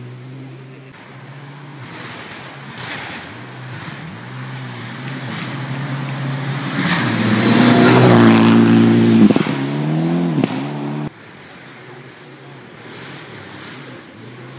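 Rally car engine at full throttle, shifting up through the gears as it approaches, then passing close with loose gravel and leaves sprayed up. The engine note falls away as it recedes, and the sound drops off sharply about eleven seconds in.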